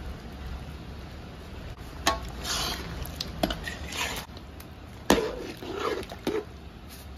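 A long metal spatula scraping and clanking against a large iron kadai as a thick chicken fry is stirred, with several sharp knocks, the loudest just after five seconds in, over a steady low hum.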